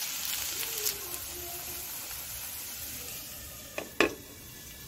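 Semolina-and-vegetable batter sizzling in hot oil in a metal pan, a steady hiss. About four seconds in, a lid is set down on the pan with two quick clicks.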